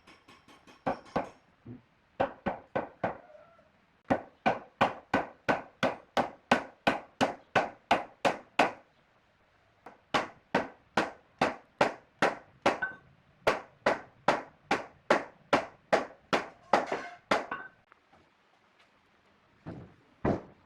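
Hammering on wood: runs of sharp blows, about three a second, broken by short pauses.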